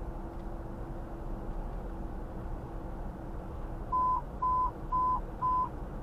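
Steady road and engine noise inside a moving vehicle's cabin. About four seconds in, four short, identical electronic beeps sound, evenly spaced about half a second apart.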